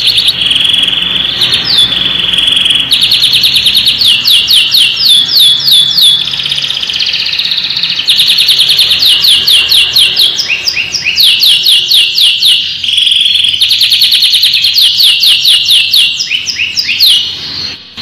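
Canary singing a continuous song of fast trills and rapid repeated chirps, broken by a few held whistled notes, with a short dip near the end.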